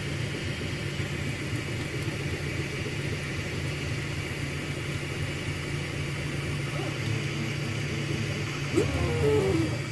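Anet A8 3D printer running steadily as it lays down the last layers of a print, its fans and stepper motors making a continuous hum and whir. About nine seconds in, a brief, louder motor whine glides in pitch as the head makes a quick move.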